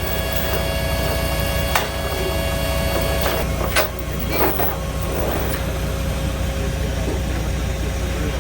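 Semi truck's diesel engine running steadily, with a steady whine over the first few seconds and a few sharp clicks.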